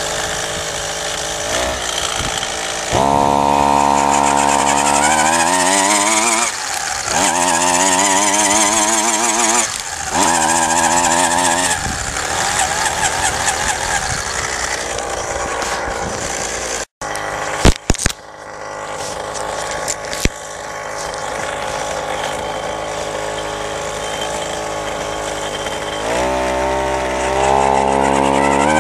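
Small 26cc two-stroke trimmer-type engine on a motorised bicycle running and being revved in repeated throttle bursts, its pitch climbing with each burst and dropping back between them. Midway, a brief dropout and a few sharp knocks.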